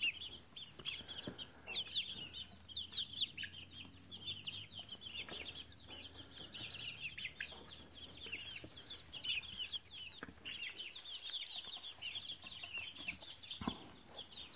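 A group of five-week-old chicks peeping over and over, many short high cheeps overlapping with no break. A single soft knock sounds near the end.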